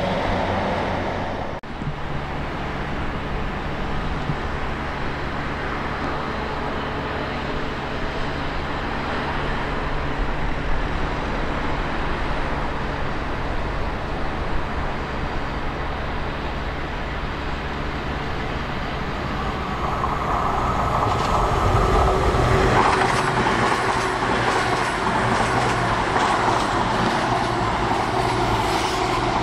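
Two coupled Cross Country Class 220 Voyager diesel-electric multiple units approaching and passing close by, their underfloor diesel engines running steadily. The engines and the wheels on the rails grow louder from about twenty seconds in as the train draws level.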